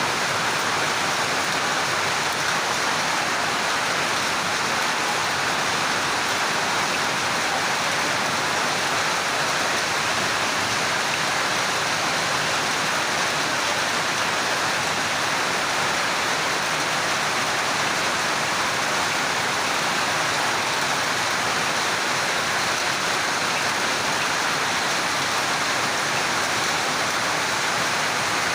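Heavy rain and hail coming down in a steady, dense hiss that does not let up.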